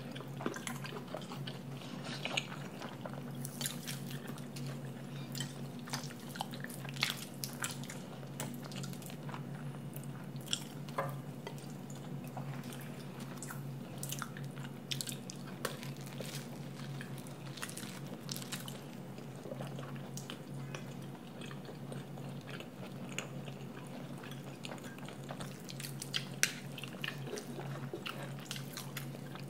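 Eating sounds: a metal spoon clicking and scraping on a plate, and toast topped with stir-fried pork and mashed potatoes being bitten and chewed. Many small sharp clicks scattered throughout, over a low steady hum.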